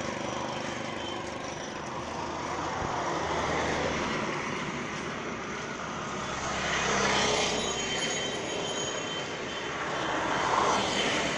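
Road traffic noise: a steady rush of vehicles on a city road, swelling several times as vehicles pass close by.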